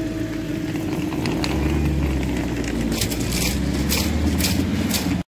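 A car driving across a level crossing with its engine running low, and a run of sharp clicks and knocks from about three seconds in as it rolls over the rails.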